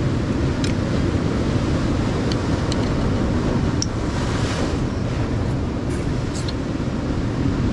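Wind on the microphone and ocean surf against a rocky shore: a steady noise, heaviest in the low end. A few brief small clicks are scattered through it, from oyster shells being handled and eaten from.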